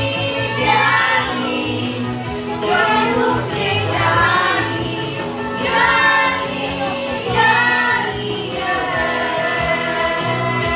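Women singing together into microphones through a PA, over amplified backing music with a steady low bass line.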